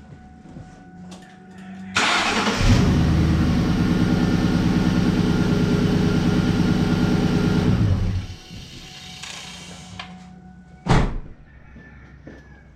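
A 2001 Ford Mustang GT's 4.6-litre V8 is cranked and catches about two seconds in, then runs steadily for about five seconds with no belt squeal or pulley noise from its new serpentine belt, tensioner and idler pulleys, and is shut off. One sharp knock near the end.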